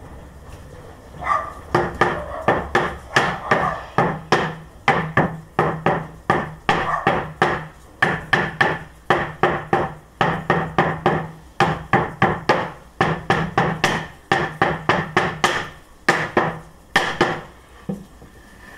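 Cloth-wrapped rubber mallet tapping beech plywood beehive panels down into their joints: quick runs of dull knocks, about four a second, with short pauses between runs. The knocks start about a second in and stop shortly before the end.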